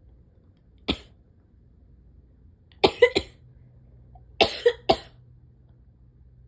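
A person's short, explosive bursts from the throat and nose, in a sneezing or coughing fit: a single burst about a second in, then two quick runs of three.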